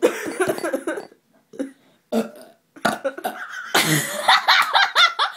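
A person belching on purpose: a long, loud burp about a second long, a couple of short ones, then a longer drawn-out stretch of belching with a wavering pitch.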